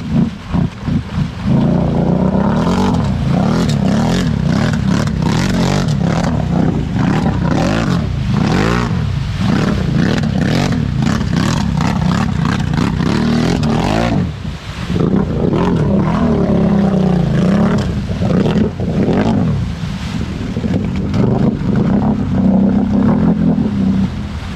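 ATV engine revving hard in repeated surges while the machine is stuck in a deep mud hole, its spinning wheels churning and throwing mud. The revs drop briefly about halfway through, then climb again.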